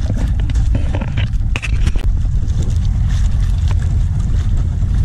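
Steady low rumble of a small fishing boat at sea, with wind on the microphone, and scattered sharp clicks and knocks.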